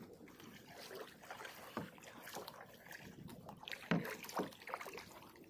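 Kayak on the water: uneven light splashes and knocks against the hull, with a sharper knock about four seconds in.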